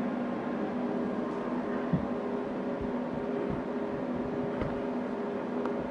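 Steady hum of running bench test equipment and its cooling fans, with two faint steady tones. A soft knock about two seconds in.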